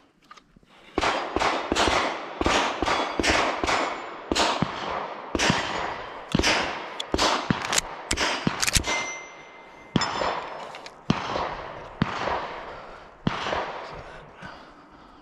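Rapid gunfire at steel targets: dozens of shots in quick strings, several a second, the hit plates ringing with a metallic clang, with a short lull about nine seconds in.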